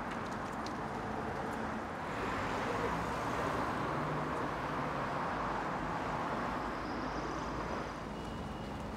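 City street ambience: a steady wash of road traffic that swells about two seconds in, as if a vehicle passes, and eases off near the end.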